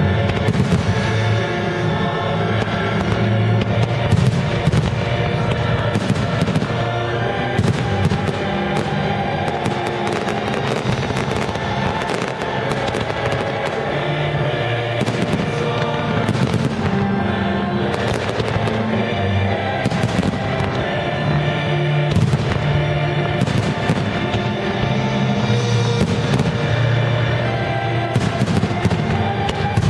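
An aerial fireworks display: many shells bursting in irregular, rapid bangs and crackles, over loud show music playing throughout.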